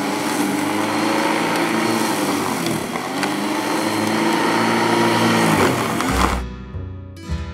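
Ozito 1400W electric lawn mower running and cutting grass, its motor and blade whine rising and sagging in pitch as it works through the grass. About six seconds in it gives way to background music.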